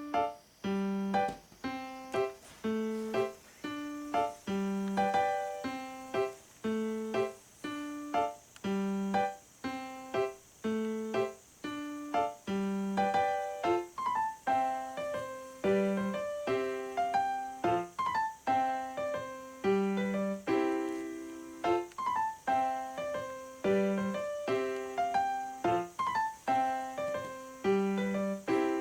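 Background music: a light piano or electric-piano tune of short, evenly paced notes over a repeating bass figure.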